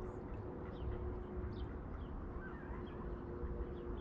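Riverside outdoor ambience: small birds chirping briefly now and then, high-pitched, over a steady low rumble and a faint steady hum.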